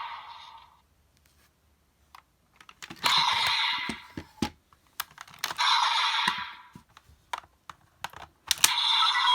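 Plastic clicks from a Kamen Rider role-play toy being worked by hand, broken by three short bursts of electronic sound effects from the toy's small speaker, about 3, 5.5 and 8.5 seconds in.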